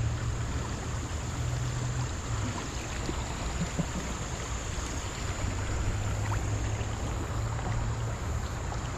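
Steady rush of a high-running river, with a low rumble underneath.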